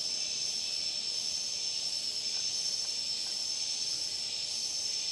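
Steady, shrill chorus of insects, a continuous high-pitched trilling with a faint regular pulse.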